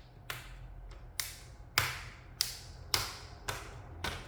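Plastic laptop screen bezel clips snapping into place as they are pressed in one after another: a series of sharp clicks, about seven, roughly every half second.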